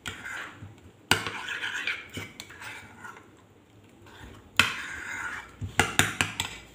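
Metal spoon stirring a thick mayonnaise-based sauce in a small bowl, scraping and clinking against the sides. There are sharp knocks about a second in and again midway, and a quick run of clinks near the end.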